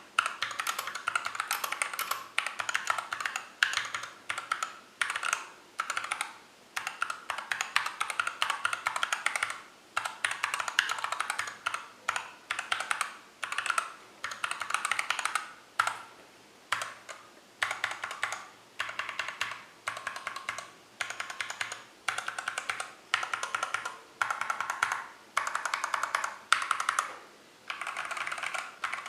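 Mechanical keyboard with Everglide Crystal Violet switches and Tai-Hao Cubic profile keycaps being typed on, the keystrokes clattering in quick bursts of about a second with short pauses between them.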